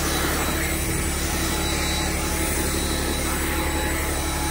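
Tractor engine running steadily, with a steady broad hiss over it.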